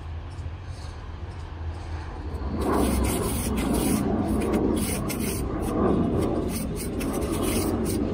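Flat steel trowel scraping and rubbing over the cement rim of a planter box to smooth its top edge. The scraping starts about two and a half seconds in and goes on in rough, repeated strokes.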